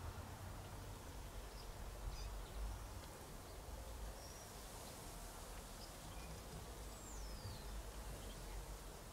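Quiet garden ambience: a steady low rumble with faint, scattered bird chirps, and one short falling bird whistle about seven seconds in.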